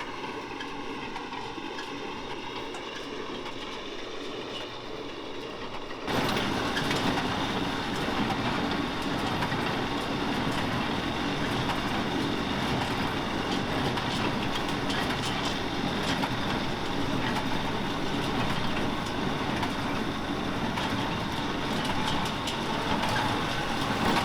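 Kubota tractor and International small square baler running in the hay field: a steady engine note at first, then about six seconds in the sound jumps abruptly to a louder, dense mechanical clatter that keeps on steadily.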